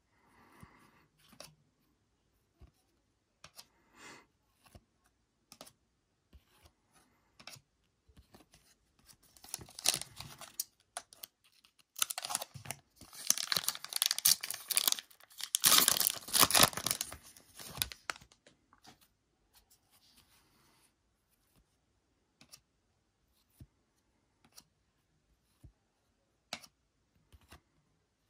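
Foil trading-card pack wrapper being torn open and crinkled by hand in several loud rips over about nine seconds in the middle. Before and after come soft clicks and rustles of cards being handled.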